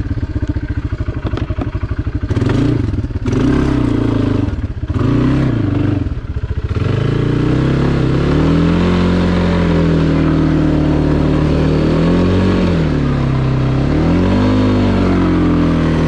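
Kawasaki ATV engine running under way. For the first several seconds it is choppy, with the throttle blipped up and down a few times. Then it holds steadier, higher revs that rise and fall a little.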